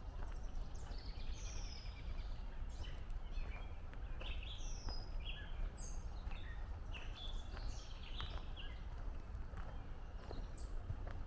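Several songbirds singing in quick short chirps and whistles, over footsteps walking along a trail and a steady low rumble.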